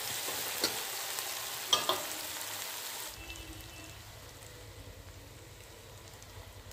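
Chopped onions frying in mustard oil in a kadhai, sizzling, with a spatula scraping and clicking against the pan a few times. About three seconds in, the sizzle drops to a quieter, steady frying.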